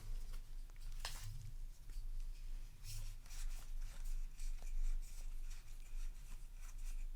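Trading cards from a freshly opened booster pack handled by hand: soft scattered clicks and rustles as the cards are slid and flipped, the sharpest about a second in, over a low steady hum.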